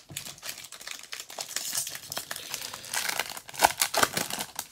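Crinkling and tearing of a 2020 Bowman baseball card pack's wrapper as it is pulled open by hand: a steady run of crackles, sharpest and loudest for a moment about three and a half seconds in.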